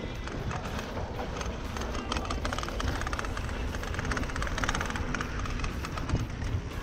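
Mountain bike rolling fast down a dirt singletrack: the tyres run over dirt and the bike rattles, over a steady low rumble.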